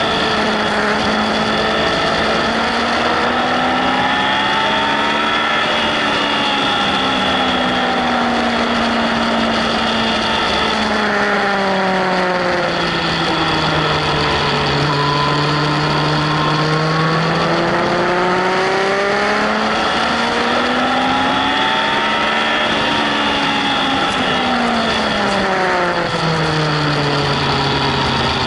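Yamaha Fazer 1000's inline-four engine running hard on track, its pitch climbing and falling in long sweeps several times as the rider accelerates and rolls off for corners, over a steady rush of wind.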